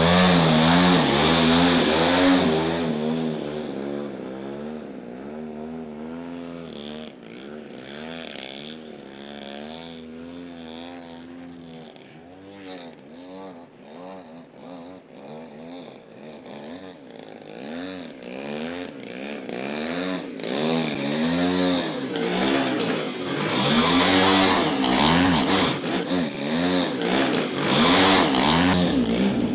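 Petrol engine of a giant RC aerobatic plane in flight, its note swooping up and down over and over as the plane manoeuvres and passes close. Loud at first, quieter through the middle as it flies farther off, then loud again over the last several seconds as it comes back close and hovers.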